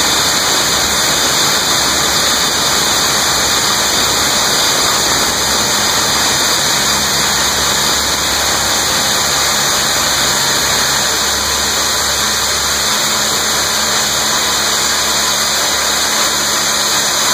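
Loud, steady machinery noise of underground roof-bolting equipment: a constant hiss with a faint low hum beneath it and no distinct strokes or pauses.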